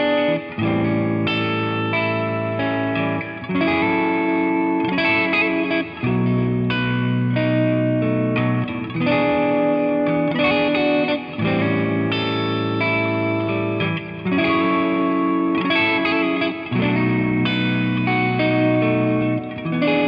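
Bacchus Universe Series BST-2-RSM Stratocaster-style electric guitar played on its middle pickup through a Nux MG-30 multi-effects modeler. It plays a progression of ringing chords and picked notes, with the chord changing roughly every two and a half to three seconds.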